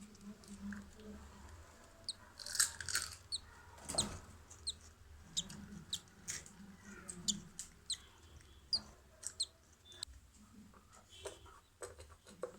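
Budgerigars giving short, high, scattered chirps, many in quick succession over a few seconds.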